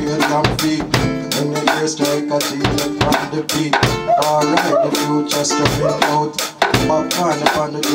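Reggae music with a drum kit's bass drum and snare keeping a steady beat under a bass line and guitar.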